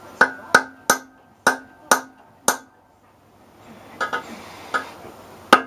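Pliers clicking against the glass neck of a CRT picture tube while venting its vacuum. There are six sharp clicks, each with a short glassy ring, in the first two and a half seconds. After a pause comes some rustling with lighter clicks and one loud click near the end.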